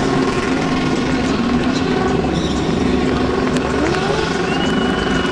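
DTM race car's engine running at a steady pitch.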